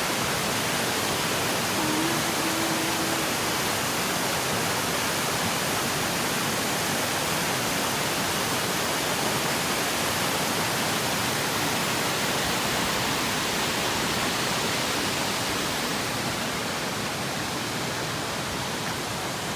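Waterfall rushing, a steady, even roar of falling water that eases slightly near the end.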